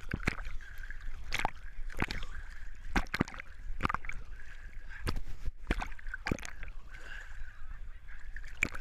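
Muddy water sloshing and splashing right at the microphone as someone wades through a mud pit, with repeated sharp splashes every half second to a second.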